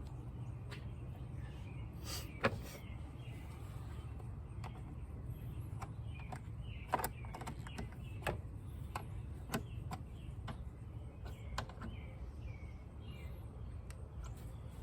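Scattered sharp metallic clicks and taps of hand tools and hardware as the negative terminal is refitted to a car battery, over a steady low rumble with birds chirping faintly.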